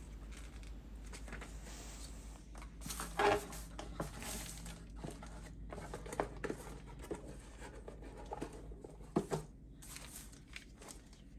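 Rustling and crinkling of packaging being handled, with a few light knocks and clicks, loudest a little after 3 seconds and again about 9 seconds in.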